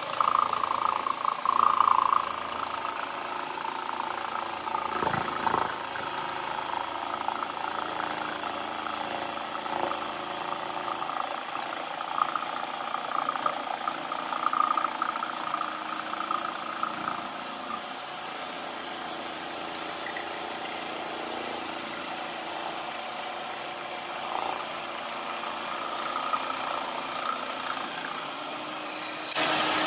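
Jigsaw mounted upside down in a bench vise, running steadily with its trigger locked on while wood is fed through its blade along a curve; the level rises and falls as the cut goes. Just before the end the sound changes abruptly to something louder.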